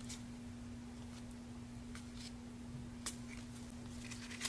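Trading cards being handled and flipped by gloved hands: a few faint sharp clicks of card against card, the clearest about three seconds in and near the end, over a steady low hum.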